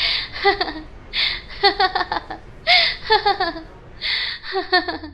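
A young woman laughing hard in repeated bouts about a second apart, each a breathy burst followed by quick pitched 'ha-ha' pulses.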